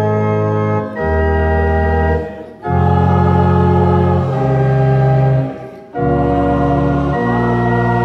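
Organ playing slow, sustained chords that change every second or two, with two brief breaths between phrases.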